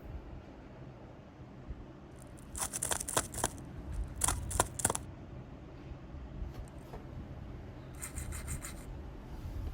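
Scratchy rubbing close to the microphone in three short bursts, each about a second long, over a faint low hum.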